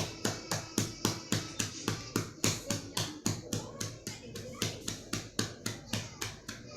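Rhythmic cupped-hand percussion patting, about four to five pats a second: chest physiotherapy clapping to loosen phlegm from the airways.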